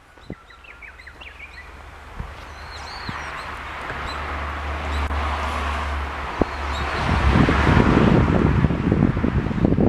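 Birds chirping, with a rushing noise that swells over the first seconds and wind gusting on the microphone from about two thirds of the way in. No chime music is heard.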